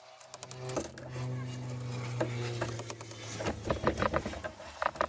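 A steady low mechanical hum, with scattered knocks and rattles of tools being handled that grow busier and louder over the last second and a half.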